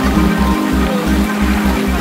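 Background music with a held bass line and sustained tones.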